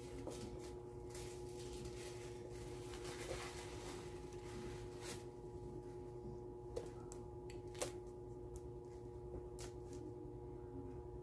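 Faint rustling and handling as the bag is taken off a new paper planner, with a few small clicks, two sharper ones a little past the middle, over a steady low hum.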